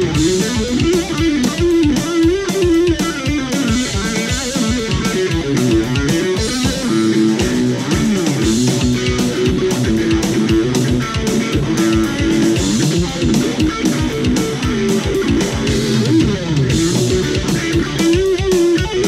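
Electric guitar played through an amplifier, single-note riffs moving up and down the neck, over a steady beat.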